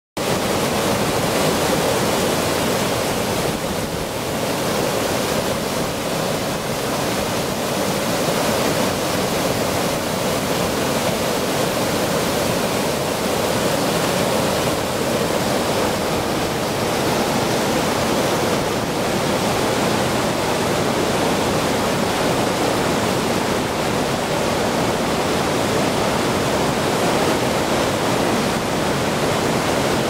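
River whitewater rushing over the lip of a large waterfall: a steady, loud rush of water with no breaks.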